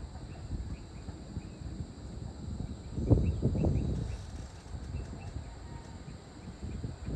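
Outdoor ambience dominated by an irregular low rumble of wind buffeting the microphone, surging strongest about three seconds in, with faint short high chirps in the background.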